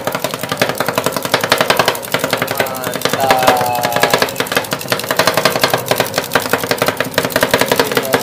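Metal spatulas rapidly chopping and working strawberry ice cream mix on the frozen cold plate of a Thai rolled-ice-cream stall, a fast, steady metal clacking.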